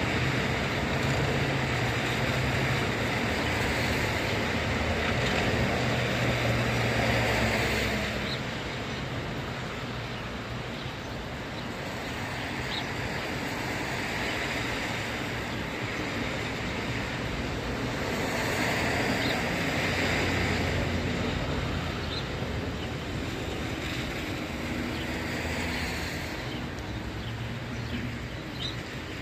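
Car tyres hissing on a wet road as traffic passes, the hiss swelling and fading a few times over a steady low hum of engines, with a continuous background hiss beneath.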